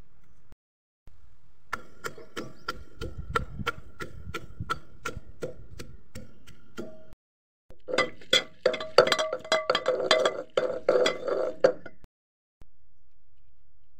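A heavy pestle pounding raw green mango slices, chillies and salt in a mortar. Steady strokes about three a second, each with a ringing clink, then after a brief break faster, louder pounding as the mango is crushed to a pulp.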